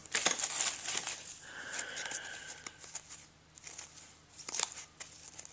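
Rustling and crinkling of a foil trading-card pack and the cards inside being handled, loudest at the start and again about four and a half seconds in.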